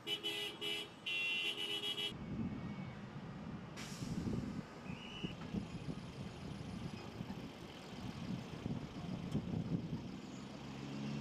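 A vehicle horn honking: three short toots, then a longer one ending about two seconds in. Street traffic follows, a low, uneven rumble of passing cars and scooters.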